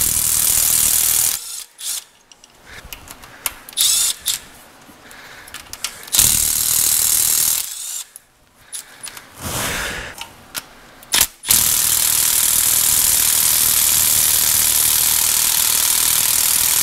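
Cordless electric ratchet running in bursts, backing bolts out of a Toyota 2JZ engine: two short runs of about a second and a half, then one long steady run of about six seconds starting about two-thirds of the way in. Tool clicks and knocks come in between.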